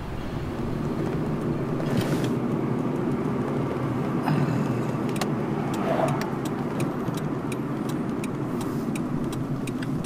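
A car driving, heard from inside the cabin: steady road and engine noise, with scattered light clicks and rattles in the second half.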